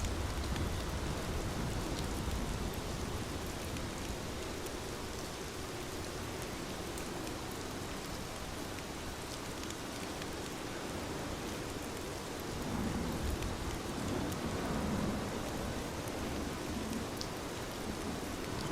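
Steady rainfall pattering on a surface, with a few faint crackles. A low rumble swells briefly about two-thirds of the way through.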